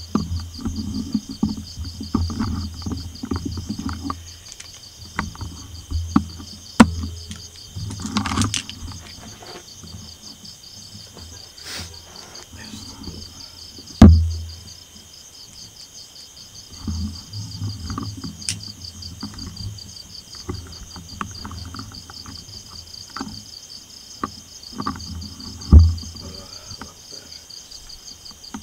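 Crickets chirping in a steady, pulsing chorus. Over it come stretches of low footsteps and handling noise, and three sharp thumps; the loudest is about halfway through.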